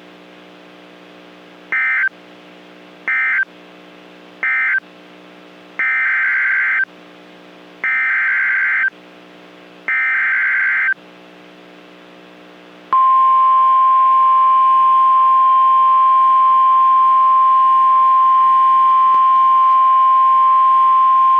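NOAA Weather Radio Emergency Alert System (SAME) signal: three short data bursts closing the previous warning, then three longer header bursts about two seconds apart. These are followed by the steady 1050 Hz warning alarm tone for about nine seconds, announcing the next severe thunderstorm warning.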